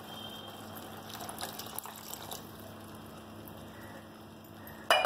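Water poured from a glass jug into a steel pot of curry, a soft steady trickle and splash. Near the end a single loud knock of a utensil or jug against the pot or counter.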